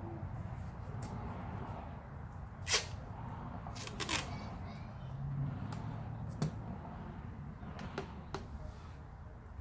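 Headlight lens being wet-sanded with 1200-grit to strip its failed clear coat: a low steady rumble of sanding, broken by a few sharp clicks and taps.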